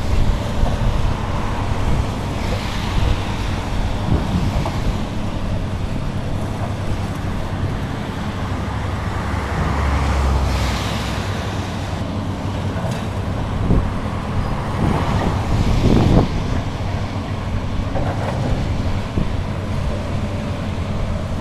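Hydraulic excavator's diesel engine running steadily under load, with scattered knocks and crashes of demolition rubble being broken and dropped.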